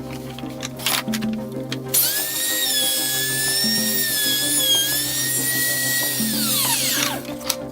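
Electric wood router starts abruptly with a high whine, runs steadily for about four seconds, then is switched off and winds down with a falling pitch. Background music with a steady beat plays throughout.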